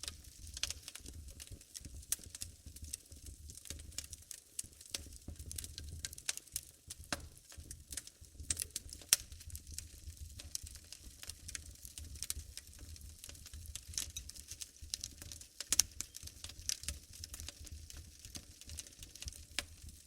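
Wood fire burning in a fireplace, crackling with irregular sharp pops and snaps over a low rumble.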